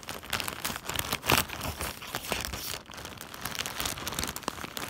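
Plastic shipping mailer crinkling and crackling irregularly as a kitchen knife saws and scrapes at it, with short sharp scratches; the blade is struggling to cut through.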